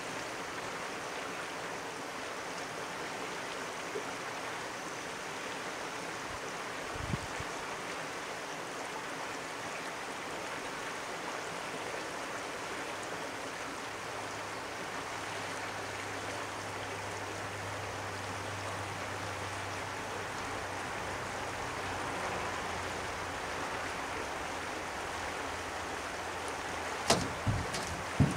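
Shallow river running steadily over rocks in a riffle. A low steady hum joins about halfway, and a few sharp knocks come near the end.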